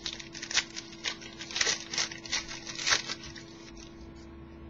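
Crinkling and crackling of a trading-card pack wrapper being handled, a quick string of sharp crackles for about three seconds that then stops.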